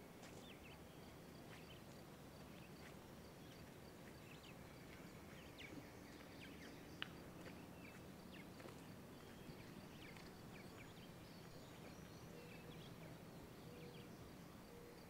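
Quiet woodland ambience: scattered bird chirps and a steady, evenly pulsing insect trill over a low hum.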